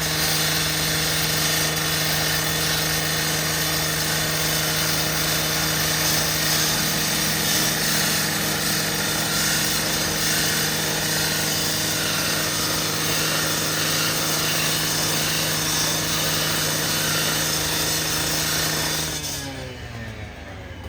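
Gas-powered rotary saw running at full speed, cutting through metal roll-down gates, then shut off about 19 seconds in, its engine and blade winding down with a falling pitch.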